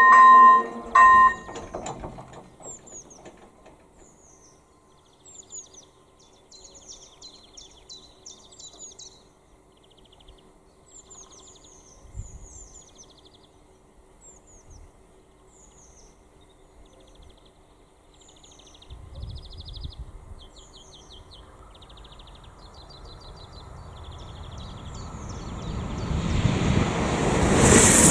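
AŽD ZV-01 electronic level-crossing bell ringing its pulsing two-tone warning, which stops about a second in as the barriers finish lowering. Birds chirp over a quiet stretch. Near the end a Pendolino electric train's rumble swells and grows loud as it reaches the crossing.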